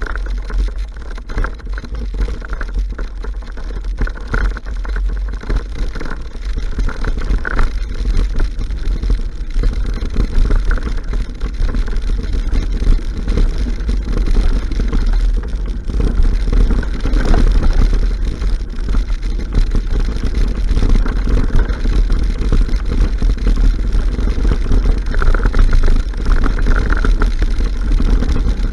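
Steady noisy rumble of a mountain bike being ridden along a grassy dirt trail, with wind buffeting the camera microphone and the tyres and bike rattling over the ground.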